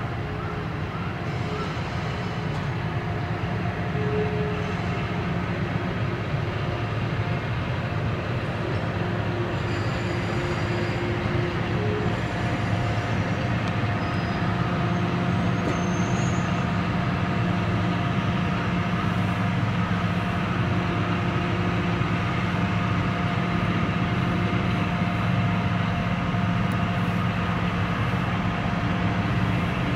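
Diesel train (DE15 diesel locomotive with 12 series coaches) running steadily: a constant low hum with faint steady whining tones above it, a little louder after the first few seconds.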